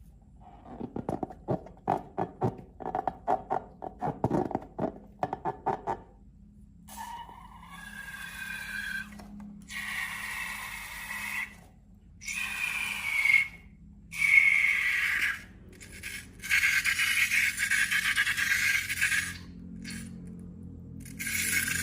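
Slime being squeezed with a quick run of sticky clicks and pops, then several bursts of hissing squeal like air forced out of a balloon's neck.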